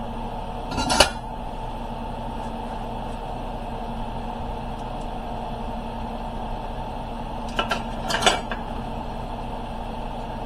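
A steady low hum of kitchen background noise, broken twice by short clatters of cookware, once about a second in and again near eight seconds, as a pan and utensils are handled on the stove.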